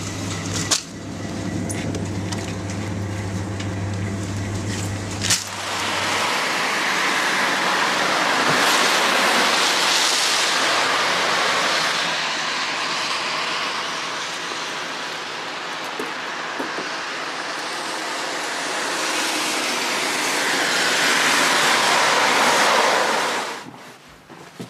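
A low steady hum for about five seconds, then a long rushing noise of a passing car on the road that swells twice and falls away suddenly near the end.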